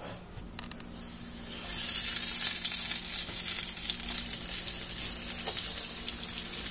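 Flour-coated chicken drumsticks frying in a skillet of hot oil: after a few light clicks, a loud sizzle and crackle starts about two seconds in as the chicken goes into the oil and keeps going steadily.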